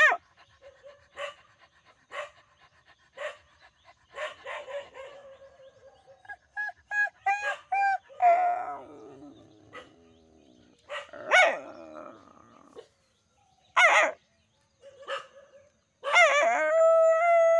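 A tan village dog barking and yelping in a run of separate calls, with a long howl near the end; it has been stirred up by a person imitating a dog.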